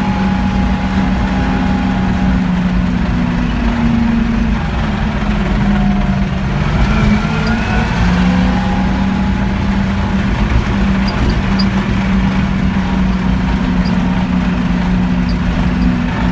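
Tractor diesel engine running steadily under way, heard from inside the cab: a continuous low drone that dips and rises slightly in pitch a few times.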